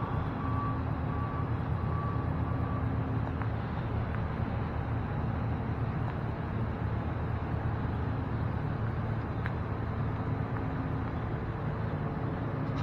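A car's engine and road noise: a steady low rumble that holds even throughout.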